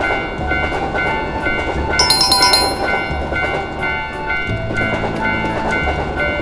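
A train running, with a ringing two-note tone repeating at an even pace over it and background music; a brief sparkling chime about two seconds in.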